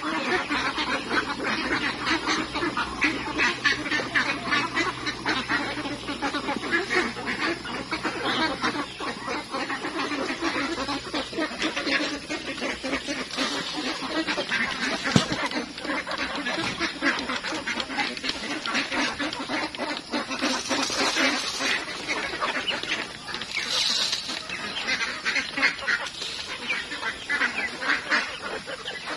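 A large flock of domestic ducks quacking continuously, many birds calling over one another at once.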